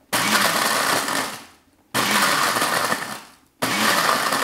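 Countertop blender run on its pulse setting, chopping maisena biscuits into crumbs: three short pulses, each starting suddenly and winding down before the next.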